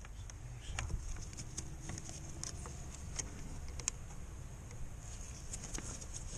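Faint scattered clicks and taps of hands working small plastic fuel leak-off hoses and fittings on a diesel's injectors, over a low rumble and a steady faint hiss.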